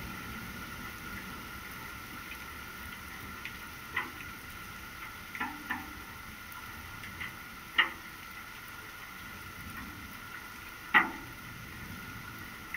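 Steady summer rain falling, with a few sharp separate taps of drops striking a surface close by, the two loudest about eight and eleven seconds in.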